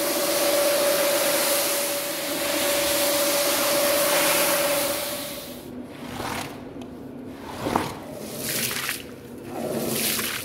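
Rotary floor-scrubbing machine running with a steady motor hum as it scrubs a soapy rug. About six seconds in it gives way to separate wet swishes of a long-handled brush scrubbing the foamy rug, with water splashing near the end.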